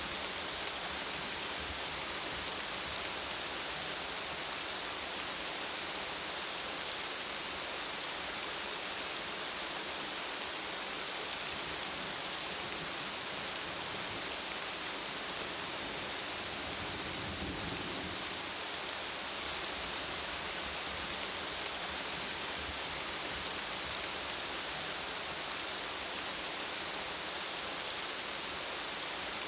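Steady rain falling, an even hiss without a break. About two-thirds of the way in, a brief low rumble sounds under it.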